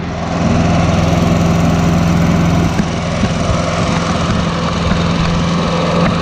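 Small gasoline engine of a walk-behind stump grinder running steadily at speed. About three seconds in, its even hum turns rougher and less regular.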